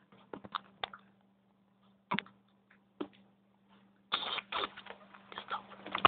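Handling noise from plastic toy figures being moved about by hand on a wooden floor: a few light clicks and knocks, then from about four seconds in a busier stretch of knocking and rustling. A faint steady electrical hum sits under it all.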